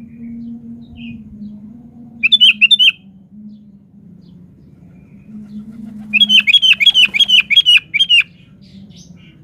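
Sooty-headed bulbul calling: a short burst of quick chattering notes about two seconds in, then a longer run of about nine rapid notes, some four a second, near the end, over a faint low hum.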